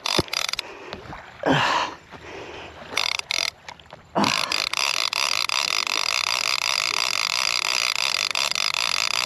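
Penn Squall 50 conventional shark reel whirring as its handle is cranked fast to take up line on a hooked shark. A few short scrapes come first, then from about four seconds in a steady ticking whir at an even pace.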